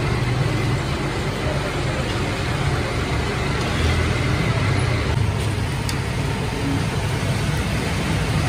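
Steady din of busy street traffic: a low rumble under a constant hiss, with no breaks.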